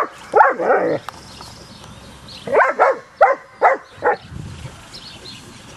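German Shepherd puppy barking: a few barks in the first second, then a quick run of four or five short barks a little over halfway in.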